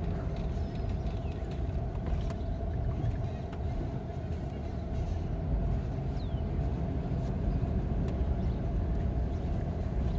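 Inside a moving car's cabin: steady engine and road rumble with an even hum running under it.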